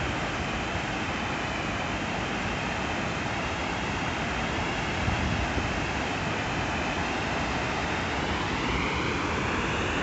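Water pouring over a dam's concrete spillway in several curtains and splashing into the pool below: a steady rushing noise.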